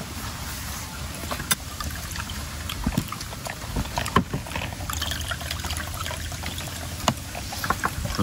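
People eating: scattered wet smacks and clicks of chewing and of fingers and a fork picking food from a bowl, over a low steady rumble.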